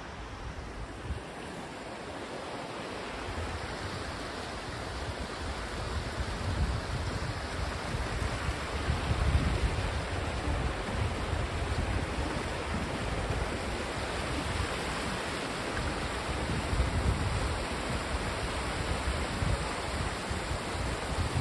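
Shallow rocky creek rushing over stones and riffles, a steady water rush that grows louder over the first several seconds, with low gusts of wind buffeting the microphone.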